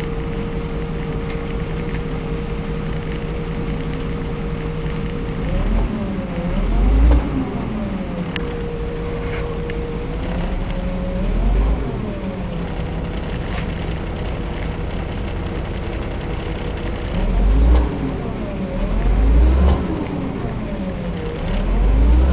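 Ikarus 250.12 bus's hydraulic power-steering pump whining steadily over the diesel engine at idle. Several times the engine is revved briefly, and the whine rises in pitch with the engine rumble and falls back.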